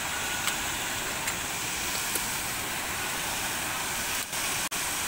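Steady rush of fast-flowing river water, an even hiss with a few faint ticks, briefly dropping out twice near the end.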